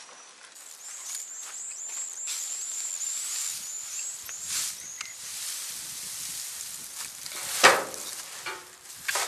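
Rural outdoor ambience: a small bird gives a quick run of short, high chirps for a few seconds. A single sharp knock comes about three quarters of the way through.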